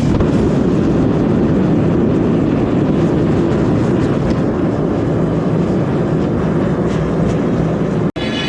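Forge running with a steady, loud roar that cuts off suddenly near the end.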